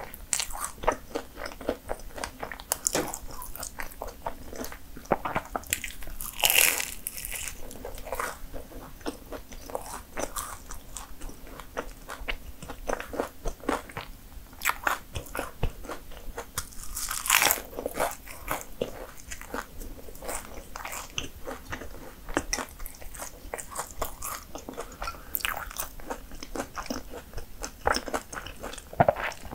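Biting and chewing flaky pastry: crisp, crackly crunches of the layered crust, with a couple of louder bites.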